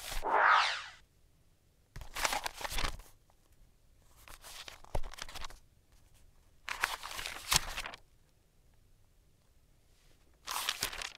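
Tissue paper being torn apart by hand, in about five separate rustling bursts a second or so long with short pauses between, the first the loudest.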